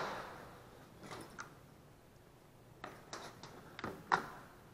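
Faint, scattered light clicks and taps of small engine parts and a plastic parts organizer being handled.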